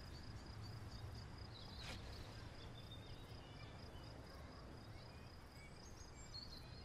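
Faint outdoor ambience: a steady high-pitched insect drone with a few faint bird chirps over a low background hum, and one faint click about two seconds in.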